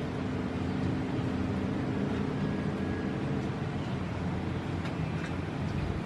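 Steady drone of a running vehicle engine, with a low hum and an even rush of noise.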